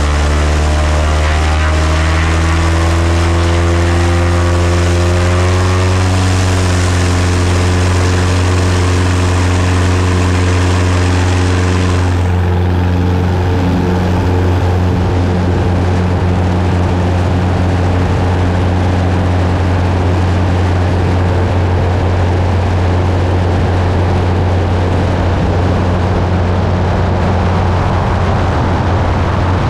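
Aviat Husky bush plane's piston engine and propeller run up to full takeoff power (about 2,650 rpm), rising in pitch over the first several seconds. It then holds a steady full-power drone through a short grass-strip takeoff roll and climb-out.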